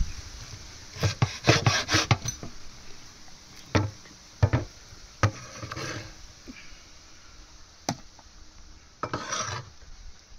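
Food-preparation sounds on wood: a quick run of sharp knocks about a second in, then single knocks spaced a second or so apart, and a short scrape near the end.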